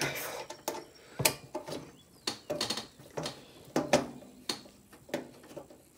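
Screwdriver working a stubborn screw loose from a PC case's metal hard drive cage: irregular sharp clicks and short scrapes, one or two a second.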